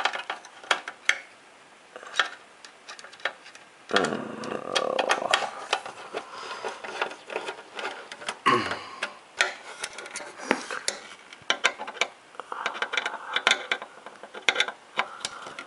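A screwdriver undoing the small screws that hold an Xbox 360 Slim motherboard in its metal chassis. Irregular clicks and ticks run throughout, with a few short stretches of scraping where the driver and parts rub and are handled.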